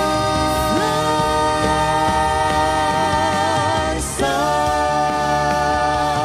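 Cantonese pop ballad music with long held melodic notes wavering in vibrato; one phrase ends and a new held note begins about four seconds in.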